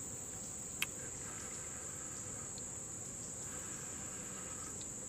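Steady high-pitched chorus of summer insects, one unbroken shrill band, with a single light click about a second in.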